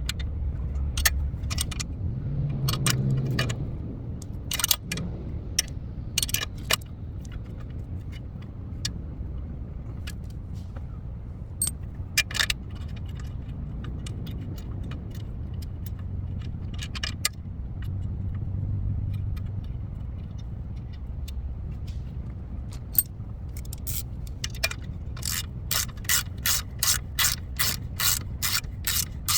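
Metal hand tools clinking and scraping, with scattered sharp clanks. Near the end a ratchet wrench starts clicking in a steady rhythm, about four clicks a second.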